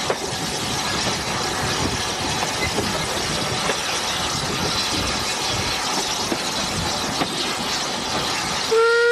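Andrew Barclay industrial steam tank locomotive running, heard from its footplate as a steady rushing clatter of engine and wheels with irregular knocks. Near the end its whistle sounds loudly on one note.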